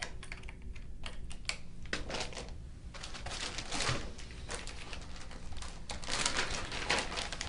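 Irregular small clicks and taps from a probe cable's plastic connector being handled, then rustling and crinkling of plastic packaging from about three seconds in as a disc sleeve is taken out.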